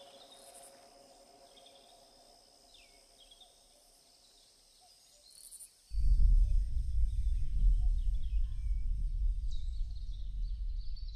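Outdoor garden ambience: scattered short bird chirps over a faint steady high insect hum. About six seconds in, a loud low rumbling noise cuts in suddenly and keeps going, wavering in level.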